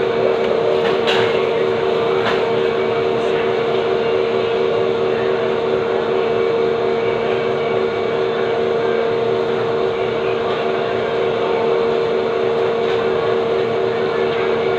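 A steady, loud mechanical hum with a constant low drone, unchanging throughout, with a couple of faint clicks about a second and two seconds in.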